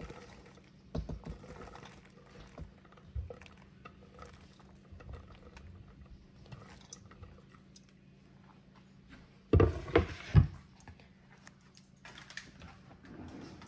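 Diced onion and habanero pepper scraped off a wooden cutting board into a stainless steel mixing bowl of seasoned meat: soft scrapes and light clicks over a faint low hum, with three loud knocks close together about ten seconds in.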